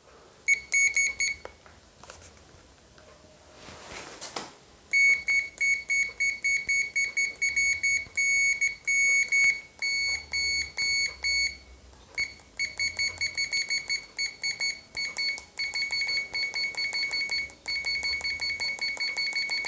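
Digital multimeter's continuity buzzer beeping as the test probe tips are touched together: a high-pitched beep that sounds only while the tips make contact, showing the test leads conduct. A couple of short beeps come about half a second in, then from about 5 s a long run of rapid, stuttering beeps with a brief break around 12 s.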